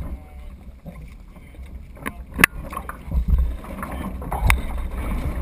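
Water splashing and rushing along a Weta trimaran's hulls as it sails through chop, with wind buffeting the microphone. Two sharp knocks come about two and a half and four and a half seconds in.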